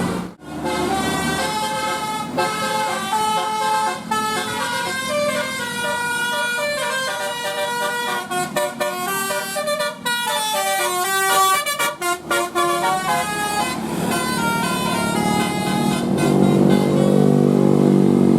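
Bus 'telolet' musical air horn playing a fast melody of stepped notes, the tones jumping up and down several times a second, with a deeper, louder sound coming in near the end.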